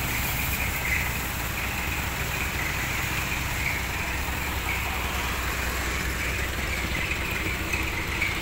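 An engine idling steadily, with water hissing from a hose spray.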